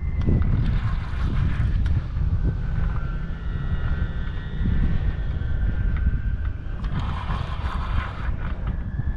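Wind buffeting the microphone outdoors, a steady low rumble, with faint steady high tones and two short spells of brighter hiss, about a second in and near the end.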